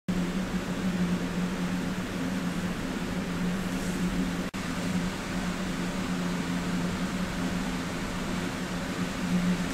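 Steady mechanical hum with a low drone and an even hiss, like a running fan, broken by a brief dropout about halfway through.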